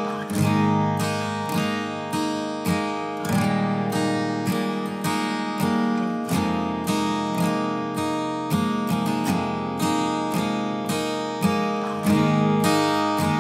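Background music: an acoustic guitar strumming a steady rhythm, about two strums a second.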